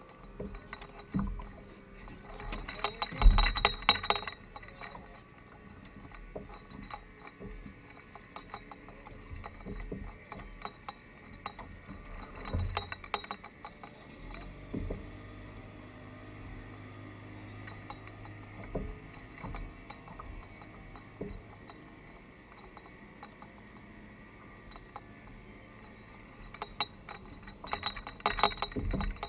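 Clinks, knocks and rattles of fishing gear being handled aboard a plastic kayak, in two busy clusters near the start and near the end, with a low steady hum for several seconds midway.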